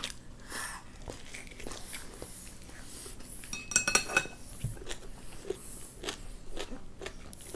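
Eating sounds: soft chewing and biting, with a short clatter of a utensil against a dish that rings briefly about four seconds in.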